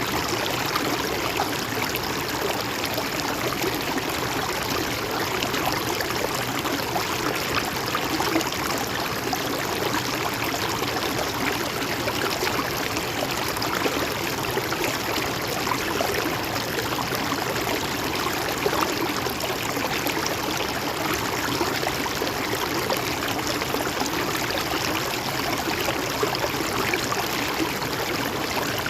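A shallow stream flowing steadily, its water gurgling and splashing over rocks in an even rushing noise with small irregular splashes.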